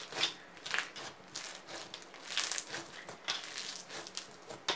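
Bead-filled floam slime squeezed and kneaded by hand, the beads crunching and crackling in a quick, uneven string of pops.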